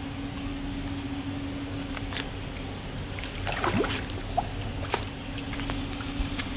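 Small electric motor of a remote-control toy submarine running with a steady hum that cuts off near the end. Water splashes about halfway through, followed by several sharp clicks.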